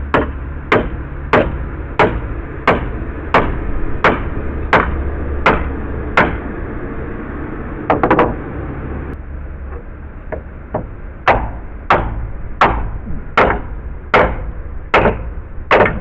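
Hammer blows on wood, struck in a steady rhythm of about one and a half blows a second, a short clattering pause about halfway, then another run of blows, as deck framing is knocked apart.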